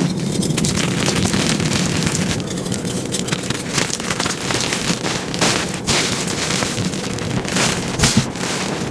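Chunks of gym chalk crunching and crumbling as hands squeeze and crush them, with gritty powder rustling between the fingers. Steady dense crackle, with a few sharper crunches standing out in the second half.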